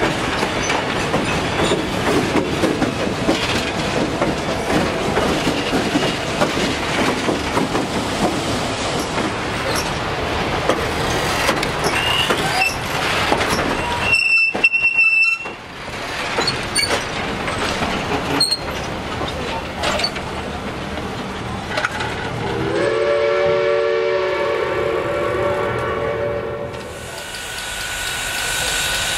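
Passenger train rolling past at close range with a steady rumble and wheel clatter, and a brief high squeal about halfway. Near the end a train horn sounds a multi-note chord for several seconds.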